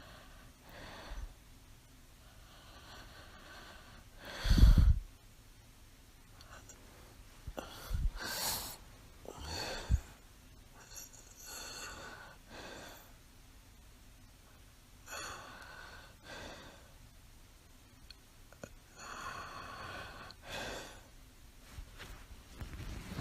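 Sleep breathing of a woman with mild sleep apnea: irregular, uneven breaths, with one loud, low breath sound about four and a half seconds in and two smaller loud ones around eight and ten seconds.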